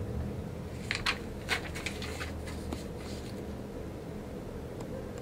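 A handful of light clicks and rustles over a steady low room hum, bunched about one to two seconds in.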